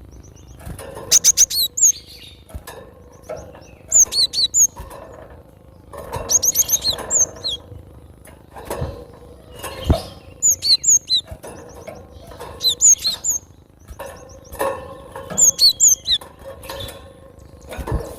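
Cinereous tit (gelatik batu) calling: clusters of short, sharp, high-pitched chirps, repeated every second or two.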